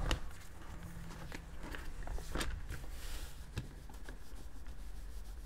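Soft handling sounds of a Logitech G240 cloth mouse pad and a cutting mat being moved about on a wooden desk: a few light taps and rustles over a low steady hum.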